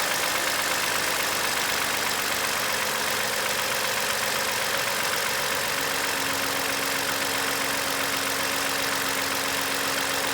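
2015 Toyota Highlander engine idling steadily, with a noise the owner questions as possible engine knock. A steady low hum comes in a little past halfway through.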